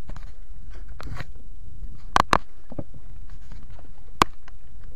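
Steady low wind rumble on the microphone on a small boat at sea, broken by a few sharp clicks and knocks: one about a second in, two close together just after two seconds, and a loud one near the end.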